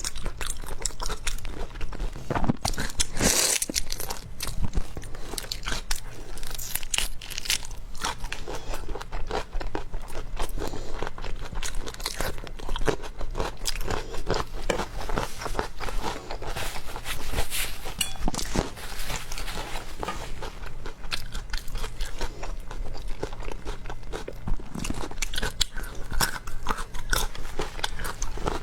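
Close-up eating of seafood: crisp crunching and chewing, with many irregular clicks throughout.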